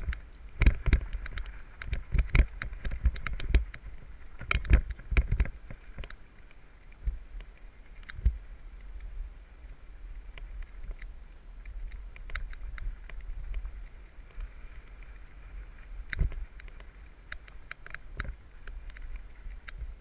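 Mountain bike rattling over a rough dirt trail: irregular knocks and clicks from the bike being jolted, densest in the first few seconds and again near the end, over a steady low rumble.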